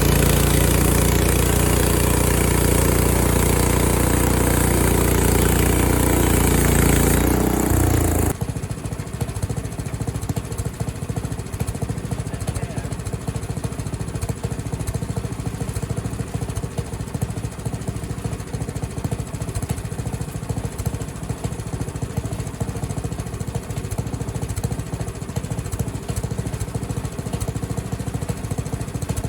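Engine of a Frontier OS23 portable bandsaw sawmill running loud at high throttle, then dropping suddenly to a steady, evenly pulsing idle about eight seconds in.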